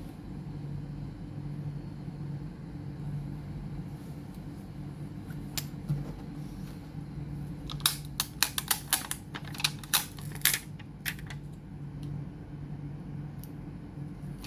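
Small sharp clicks and taps of hand work on a laptop's case and parts: a single click, then a quick run of about a dozen clicks over some three seconds, and one more near the end, over a steady low hum.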